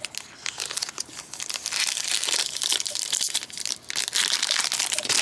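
Foil wrapper of a baseball card pack crinkling as it is handled and opened, an irregular crackle of fine clicks.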